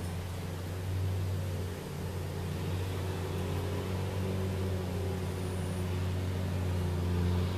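Steady low motor hum with a light hiss behind it.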